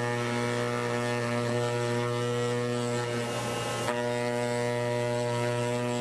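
CNC gasket cutter's pneumatic oscillating knife running as it cuts graphite gasket sheet: a steady hum with many overtones, with a brief click about four seconds in.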